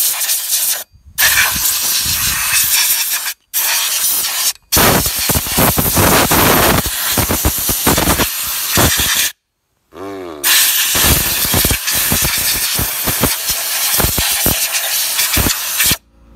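Aerosol can spraying through its straw nozzle onto a moped's exposed variator and drive belt: loud hissing in long bursts with a few short breaks between them.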